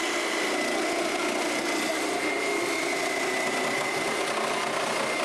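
Small electric motor appliance running steadily: a constant high whine over an even rushing noise.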